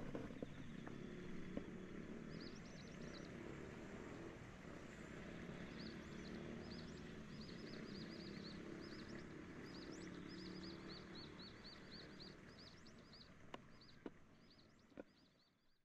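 Small bird chirping in quick repeated short notes over a faint low background rumble. A few sharp clicks come near the end as everything fades out.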